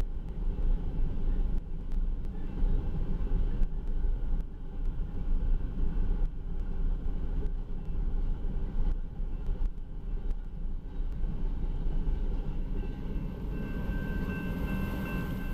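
Iron ore train's gondola cars rolling past, a loud rumble of steel wheels on the rails with uneven surges. It eases as the last car clears near the end, and a crossing signal bell rings out plainly.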